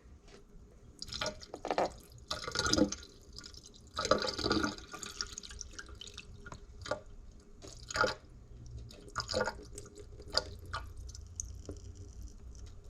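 Lemon and lime juice being drained off fish ceviche. The liquid splashes out in uneven pours over the first few seconds, then falls as separate drips and spatters about once a second.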